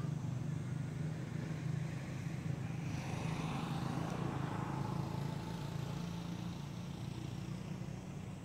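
A motor vehicle passing by, swelling and fading with a shift in pitch between about three and six seconds in, over a steady low drone.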